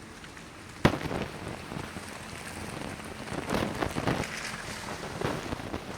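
Rain pattering with gusting wind, after one sharp knock about a second in.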